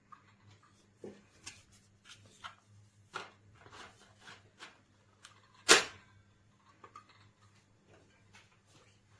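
Handling noises: a string of light clicks and knocks, with one sharper, louder knock a little past halfway, over a faint steady low hum.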